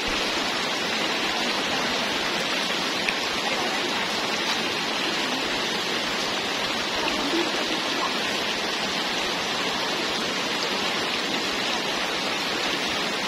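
Steady rushing of running water, an even hiss that holds the same level throughout.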